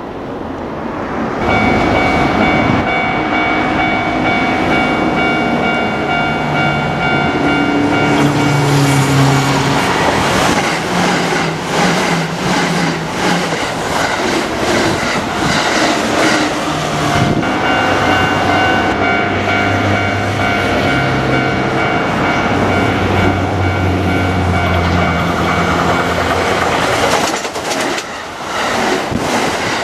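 Kintetsu Osaka Line trains passing over a level crossing, wheels clattering over the rail joints, while the crossing's warning bell rings. The sound builds about a second and a half in and has a brief lull near the middle before the clatter resumes.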